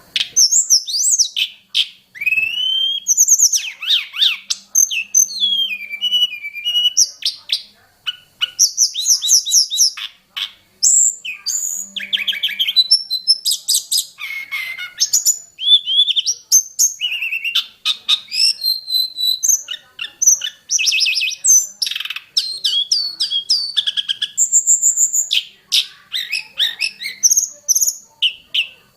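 Tledekan gunung singing a fast, varied song of whistles, trills and chattering phrases, rich in mimicked song, in quick bursts with short pauses. The song starts abruptly.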